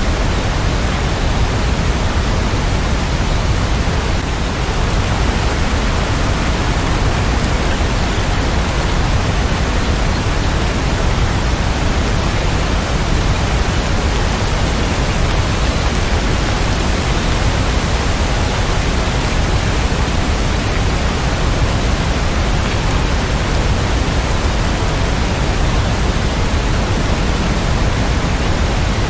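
Heavy rain falling steadily: an even, unbroken hiss with a low rumble underneath.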